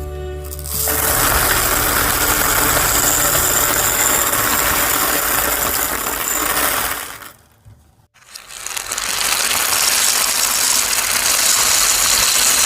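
A dense, continuous clatter of many small beads falling. It breaks off for about a second around seven seconds in, then starts again at full level.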